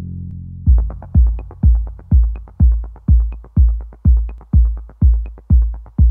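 Electronic dance music: a held bass note fades out, then under a second in a steady four-on-the-floor kick drum starts at about two beats a second, with light ticks between the beats.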